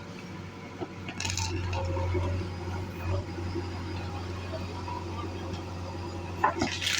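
Diesel engine of heavy earthmoving equipment running at a steady speed, a low continuous hum, with a few faint clicks and knocks.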